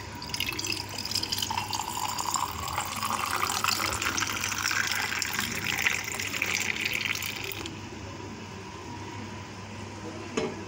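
Pomegranate juice being poured into a stemmed glass over ice cubes, a steady splashing pour whose pitch rises as the glass fills. The pour stops about three-quarters of the way through.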